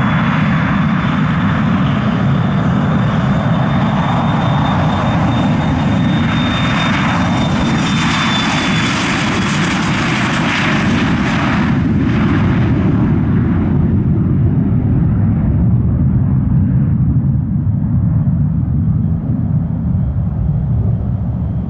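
Bombardier Challenger 300 business jet's twin Honeywell HTF7000 turbofans at takeoff power through the takeoff roll: a steady high whine over a deep rumble. The whine fades about ten seconds in and the hiss a few seconds later, leaving the low rumble as the jet lifts off.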